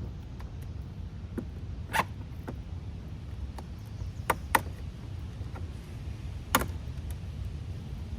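Scattered sharp clicks and taps from hand work on a car door, four of them louder, over a steady low rumble.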